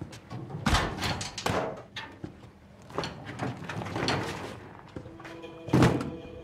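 A cabinet door opened and things shifted about inside it, a run of knocks and rustles, then a small suitcase set down on a wooden table with a loud thud near the end.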